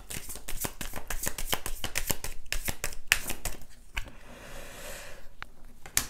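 A deck of oracle cards being shuffled by hand: a rapid run of crisp card clicks for about four seconds, then a softer sliding rustle as the cards settle.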